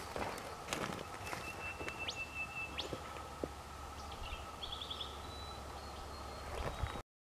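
Bush ambience: small birds calling, with one held whistled note, a couple of quick rising notes and a short trill about five seconds in, over a steady low rumble. Footsteps crunch on dry leaf litter and twigs in the first second or so, and the sound cuts off abruptly near the end.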